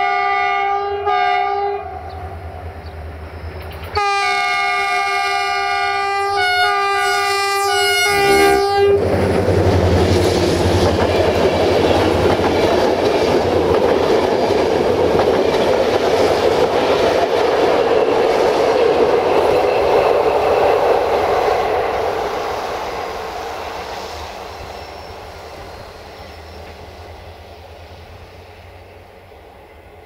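GM class 64 diesel locomotive 64-1019-0 sounds its multi-note horn, first a short blast and then a longer one with shifting notes. The train then rolls past with a steady rumble of wheels on rail that fades as it draws away.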